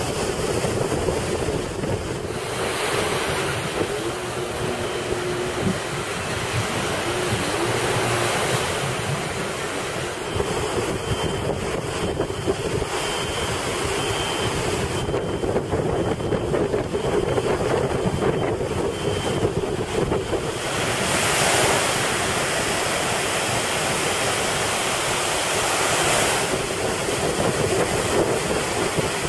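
Surf breaking on the shore, a steady wash that swells and eases, with wind blowing across the microphone.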